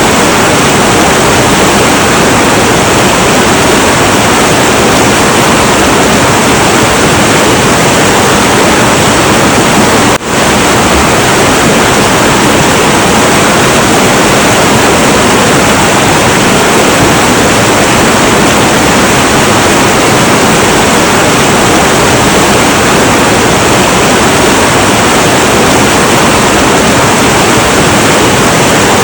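Heavy, turbulent river water rushing in a loud, steady roar, with a split-second dip about ten seconds in.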